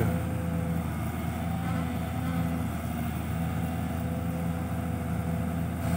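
Diesel engines running steadily at low revs: a Mitsubishi Fuso Fighter six-wheel dump truck idling while a Kobelco SK200 excavator digs beside it.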